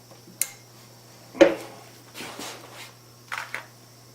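A few sharp metal knocks and clinks of tools and a workpiece being handled in a machine shop, the loudest about a second and a half in with a short ring, then a quick double click near the end, over a steady low hum.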